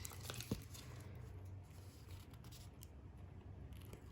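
Faint handling of a merchandise keyring's packaging: one sharp click about half a second in, then light scattered ticks and rustles, over a low steady hum.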